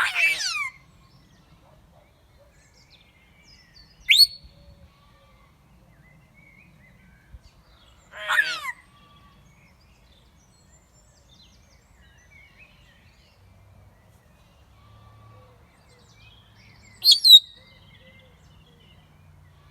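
African grey parrot calling: four separate short calls spread over the stretch, the first and third sweeping down in pitch, the second a short rising whistle and the last a sharp double call, with quiet between.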